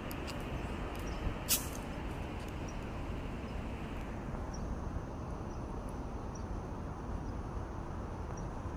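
Steady outdoor background noise, a low rumble like distant traffic, with a few faint clicks and one sharper click about one and a half seconds in.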